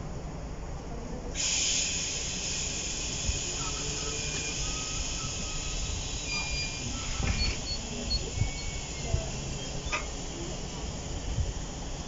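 A sudden loud hiss of escaping air starts about a second and a half in and runs on while slowly fading, typical of a train's air brakes releasing just before it moves off. A low rumble runs beneath, with a few faint clicks.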